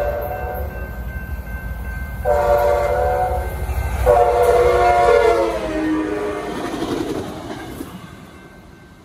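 Diesel commuter train locomotive sounding its horn for a grade crossing as it passes, over the train's low rumble. One blast ends just after the start, then come two long blasts, the pitch of the last one dropping as the locomotive goes by. The sound fades near the end as the train moves away.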